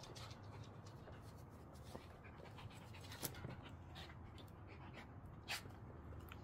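Small dogs panting in quick short breaths, with two sharper, louder sounds, one about halfway through and one near the end.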